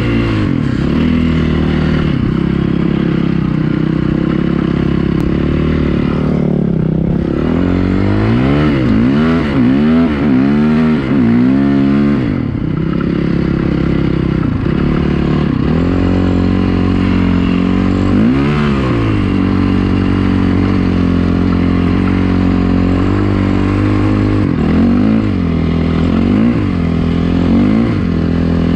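Dirt bike engine running loud, revving up and down over and over, with a run of quick rises and falls in pitch in the middle.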